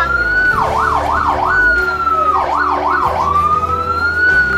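Emergency vehicle's electronic siren: a slow rising wail that twice switches to a few quick up-and-down yelps, then rises slowly again and starts to fall near the end.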